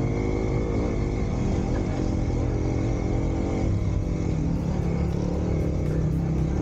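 Kawasaki KLX 250's single-cylinder four-stroke engine running under way, its revs rising and falling as the bike is ridden off-road.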